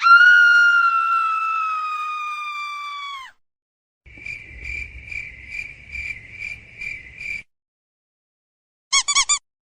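A run of separate sound effects: first a long whistle-like tone that sinks slowly in pitch and drops away after about three seconds; then crickets chirping, about three chirps a second for some three seconds; then a quick burst of high chirps near the end.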